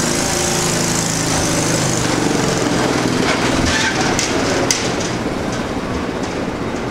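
A small engine running steadily, its hum clearest over the first few seconds, with a few sharp clicks and knocks over it.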